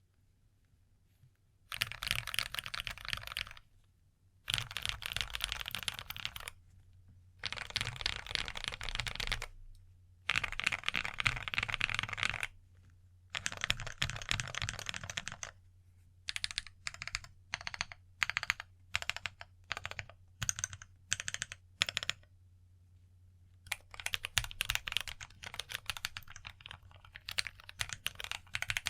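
Typing on a full-acrylic 7sPro mechanical keyboard with AKKO CS Radiant Red linear switches and AKKO Carbon Retro ASA-Low keycaps: runs of rapid keystrokes a couple of seconds long with short pauses between them. In the middle comes a stretch of about a dozen separate single key presses, then steady fast typing again near the end.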